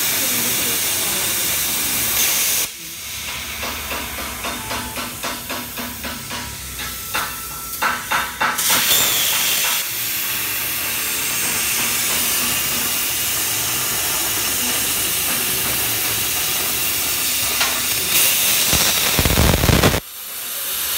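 CNC plasma cutter cutting sheet metal, the torch's arc and air making a steady, loud hiss. From about 3 s to 8.5 s the hiss is broken by regular pulsing that speeds up. A short low rumble comes near the end, then the hiss cuts off suddenly.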